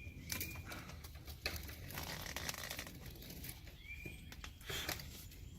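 A few short, faint bird chirps, with scattered light knocks and clicks in between.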